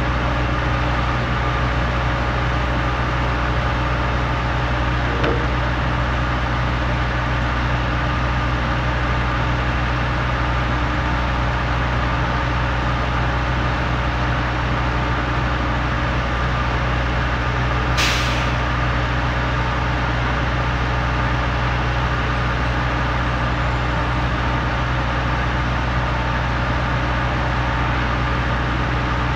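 Heavy diesel engines of a Putzmeister trailer concrete pump and the concrete mixer truck feeding it, running steadily. About two thirds of the way through comes one short hiss of air.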